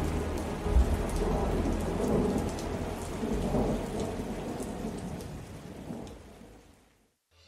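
Rain with rolling thunder, a storm ambience with a louder thunder peak about a second in. It fades out to silence near the end.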